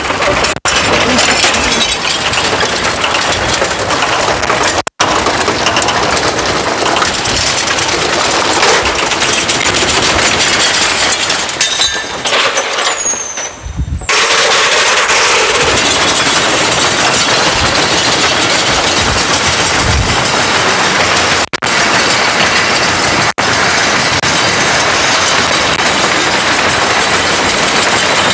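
Electrolux washing machine shaking violently in an unbalanced spin, a loud, dense rattling and banging. It drops away briefly about 13 seconds in, then carries on.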